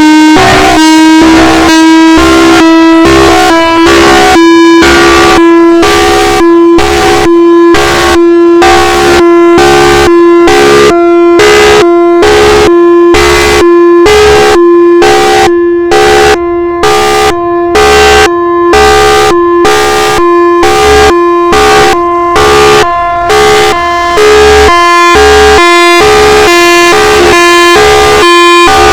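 Outdoor warning siren sounding very loud: a steady held tone with a pulsing tone over it, about two pulses a second.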